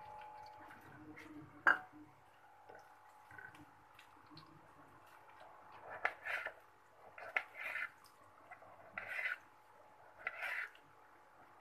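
Small kitchen knife slicing through a tomato and scraping on a ceramic plate, a stroke about every second in the second half. A single sharp clink comes shortly before two seconds in.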